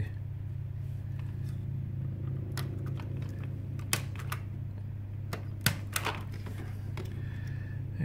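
Sharp, scattered clicks of a punch-down tool seating Cat5e wires into the insulation-displacement terminals of a network socket, the loudest two near the middle. A steady low hum lies under them.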